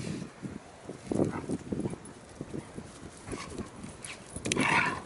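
Saarloos wolfdogs play-fighting: a string of short, irregular scuffling and dog noises, with a louder, higher sound about four and a half seconds in.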